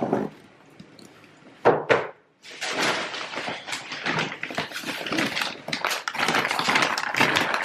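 Dry hamster substrate and sand being mixed and shifted by hand: a couple of short knocks, then about five seconds of continuous rustling and scraping.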